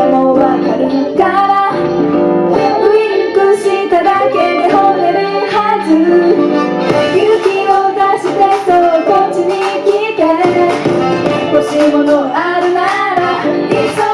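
Pop song with female vocals singing over an instrumental backing track.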